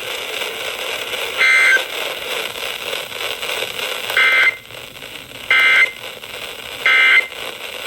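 Four short, buzzy bursts of Emergency Alert System digital data tones over radio hiss: the end-of-message code that closes a severe thunderstorm warning.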